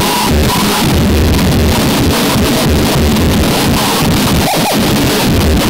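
Harsh noise music: a loud, dense wall of distorted static across the whole range, with a choppy low rumble pulsing underneath and a brief wavering whine near the end.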